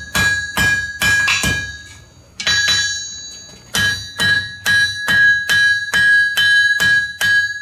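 A blacksmith's hand hammer and his striker's big hammer taking turns hitting red-hot iron on an anvil, each blow making the anvil ring like a bell. The blows come about three a second, stop for about a second near the middle, then pick up again at the same pace.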